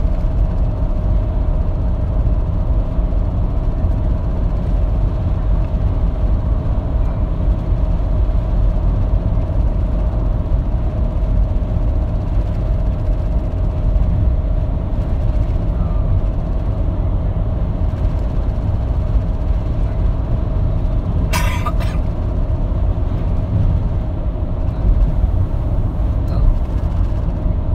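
Steady low road and engine rumble inside a car's cabin at highway speed, with a faint steady hum over it. A single short, sharp noise cuts in about three-quarters of the way through.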